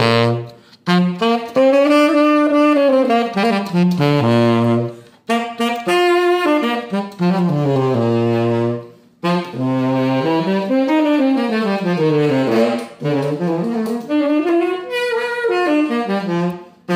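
A Galasso B-flat tenor saxophone, nickel-plated and freshly overhauled with new pads, played in flowing melodic phrases with runs up and down and some low notes. The phrases are broken by short breath pauses a few times.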